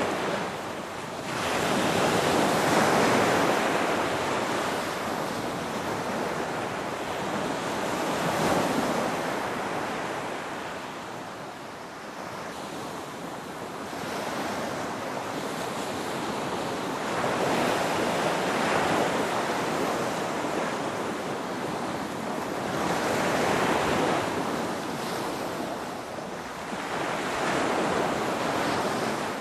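Ocean waves breaking and washing in, a continuous rushing surf that swells and eases, with louder breakers about every five or six seconds. Wind noise runs underneath.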